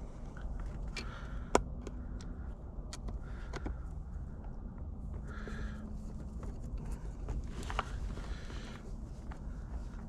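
Faint handling sounds of installing a small plastic USB outlet panel: scattered sharp clicks and light scraping as self-tapping screws are set and turned by hand with a screwdriver, over a low steady background.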